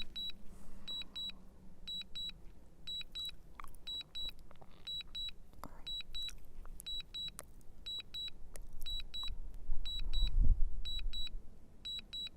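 DJI Mini 3 Pro's controller sounding a high warning beep in pairs, about once a second, with wind buffeting the microphone and gusting harder near the end.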